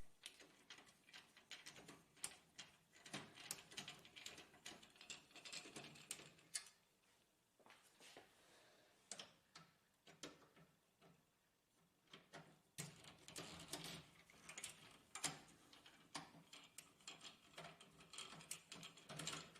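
Faint, scattered clicks and ticks of a screwdriver turning out screws and handling the plastic housing of an HP LaserJet printer, with a quieter stretch in the middle.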